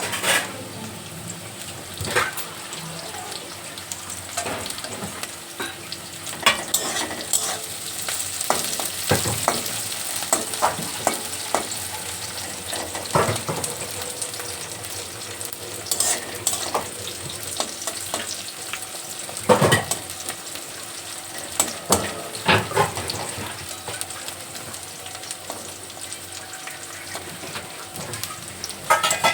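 Cashews and raisins frying in hot oil in a pan, a steady sizzle, with a spatula stirring and now and then clicking and scraping against the pan.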